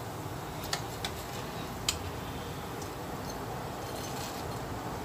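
Hot frying oil sizzling steadily in a pan, with a few sharp ticks, the loudest about two seconds in.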